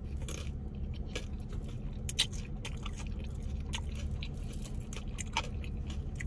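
Close-miked chewing and mouth sounds from a person eating a forkful of a grain bowl: a run of soft, irregular clicks and smacks over a steady low hum.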